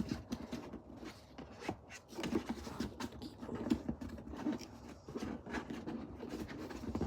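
Cardboard and packaging being handled and unpacked: irregular rustles, taps and clicks.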